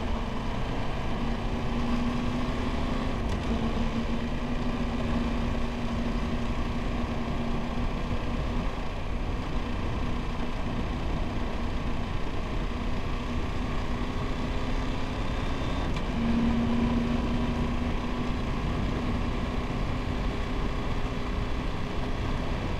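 Triumph Tiger 1200 GT Explorer's three-cylinder engine running at a steady cruise under wind and road noise. The engine note swells briefly about sixteen seconds in.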